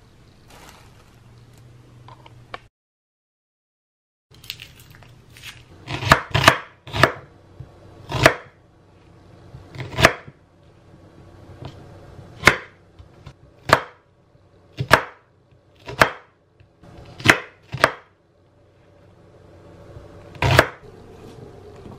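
Chef's knife chopping a red onion on a wooden cutting board: about a dozen sharp knocks of the blade on the board. They come after a moment of dead silence, with three or four close together at first, then single chops one to two seconds apart.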